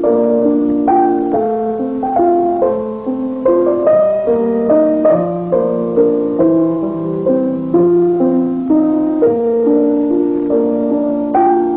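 Piano-like keyboard music: a melody of notes struck every fraction of a second over chords, without a break.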